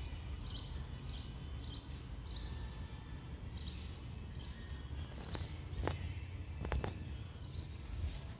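Small birds chirping in short repeated notes, with a few sharper chips a little past the middle, over a steady low outdoor rumble.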